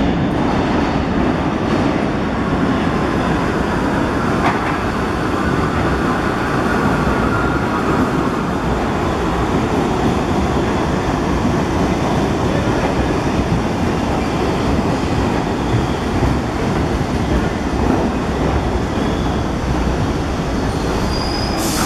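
New York City Subway R62A train pulling into an underground station and slowing, its wheels and running gear making a loud, steady noise on the rails as the cars pass.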